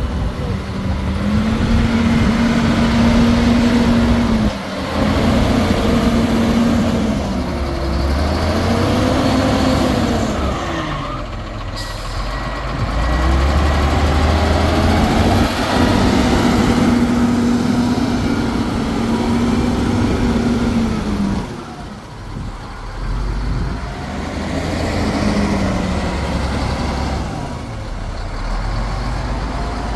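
Foton FL958G wheel loader's diesel engine running under load, revving up and dropping back several times as the machine drives and works its bucket.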